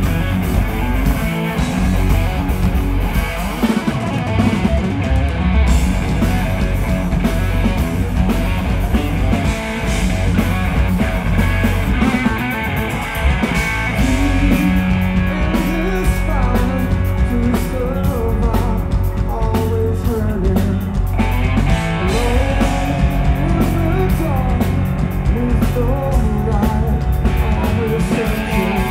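A rock power trio playing loud live music: electric guitar, electric bass and a drum kit.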